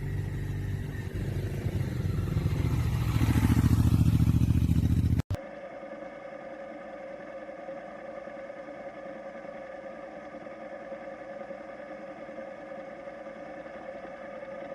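Motorcycle engine running and revving up, its pitch rising about three seconds in; about five seconds in the sound cuts off abruptly to a quieter, steady hum held at one pitch.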